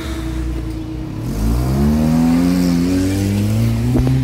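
A car engine revving up as the car pulls away over the level crossing close by. Its pitch rises for about a second and then holds, with a short knock near the end.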